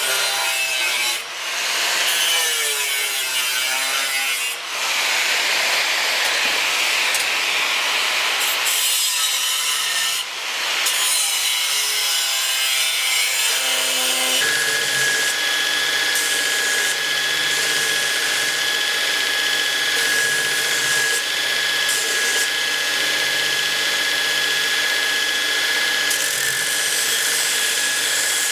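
Wood being worked for a sword scabbard: an irregular scraping and sawing with some squeaks for about the first half. Then, from about halfway, a power tool runs steadily with a high whine.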